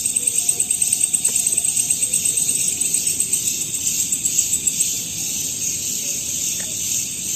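Chorus of night insects, crickets among them, with a fast, high-pitched pulsing trill that eases off about five seconds in, leaving a steady high hiss.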